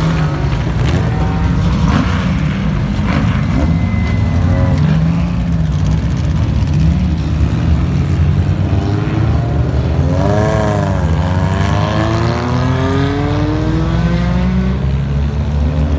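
Vintage race car engines running as cars drive past close by. About ten seconds in, one car passes with a pitch that rises and then falls, and engines speed up after it.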